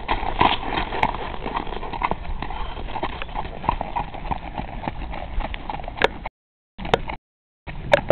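Hoofbeats of a sorrel Quarter Horse mare loping across packed gravel, an uneven run of dull knocks. The sound cuts out to silence twice near the end.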